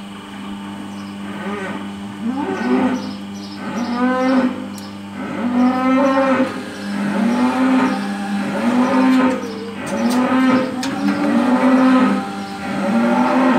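Cow mooing again and again, roughly a call every second, over a steady motor hum.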